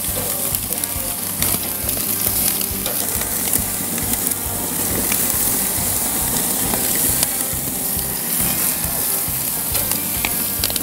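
Butterflied chicken pieces sizzling on a charcoal char grill, with scattered crackling pops as fat and butter marinade drip onto the hot coals.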